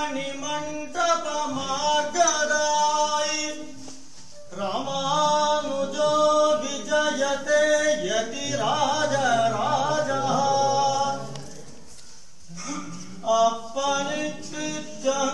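Background music: a voice singing unaccompanied in long, held, gliding phrases, with brief pauses about four seconds in and again near twelve seconds.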